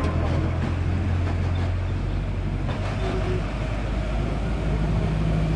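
Bus engine running with a low, steady drone, heard from on board as the bus rolls slowly; a second, higher note joins near the end.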